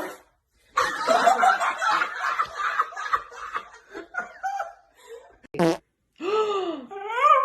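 A person laughing hard for about three seconds, a short sharp burst of noise, then a dog starting a drawn-out howl that bends up in pitch and holds near the end.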